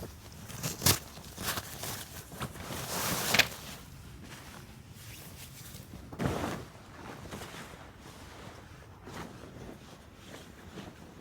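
Footsteps crunching in dry powder snow: a handful of uneven crunches, the loudest about three seconds in, then quieter shuffling.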